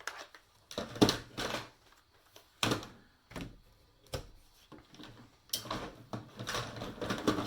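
Hard plastic parts and pieces of electronics being handled and set down on a workbench: irregular clacks and rattles, busier over the last two seconds.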